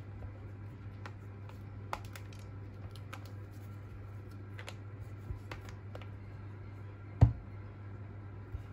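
Scattered light clicks and taps from a tablet being handled in a clear plastic case with a folio cover, with one louder knock about seven seconds in, over a steady low hum.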